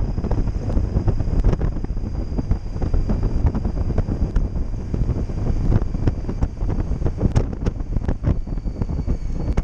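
Wind buffeting the microphone of a helmet-mounted camera on a Honda Gold Wing moving at road speed: a dense, fluttering low rumble with scattered pops and a faint steady high whine.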